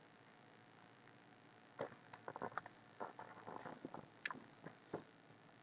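Faint, irregular clicks and taps at a computer, in short quick clusters starting about two seconds in.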